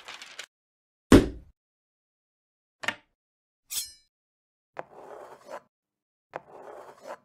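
A short paper rustle, then a heavy thud about a second in, a click and a brief high ring. Then two scraping strokes of a blade cutting paper along a metal ruler, each under a second long and opening with a sharp click.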